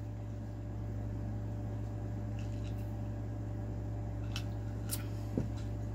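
A steady low hum fills the room while a drink is sipped through a metal straw, with a few faint soft clicks. Near the end comes one short falling gulp-like sound.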